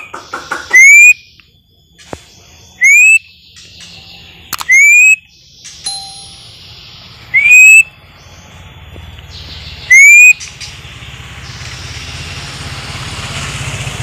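A string of about six short, loud whistles, each sliding up in pitch, at uneven gaps of one to three seconds. A rumbling noise builds over the last few seconds.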